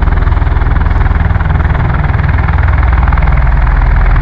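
Three V-22 Osprey tiltrotors running close by, their proprotors and turboshaft engines making a loud, steady, deep pulsing drone. The drone grows a little louder about three seconds in.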